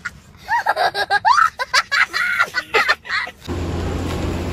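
A young child's high-pitched vocal outburst. About three and a half seconds in it cuts off abruptly, giving way to steady background noise.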